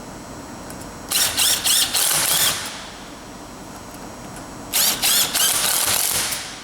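Impact wrench hammering in two bursts of about a second and a half each, tightening the nuts on a hinged plate grip conveyor belt fastener.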